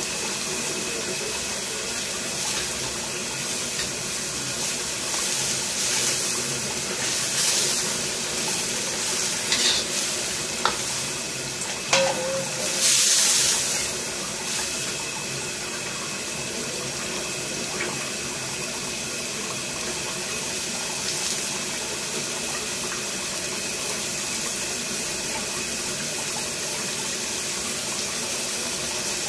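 Water boiling in a wok over a gas burner, a steady bubbling hiss. About halfway through, a metal ladle clinks against the wok and stirs and splashes the broth.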